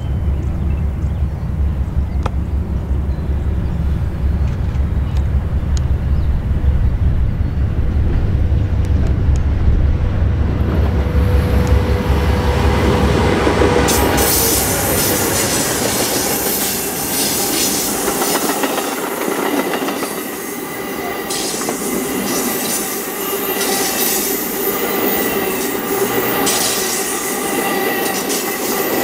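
Four GE P42 diesel locomotives approach with a deep engine rumble that grows louder, then pass close by about halfway through. After them the bilevel passenger cars roll past with loud wheel-and-rail noise, clicks over the rail joints, and a steady high squeal from the wheels rounding the curve.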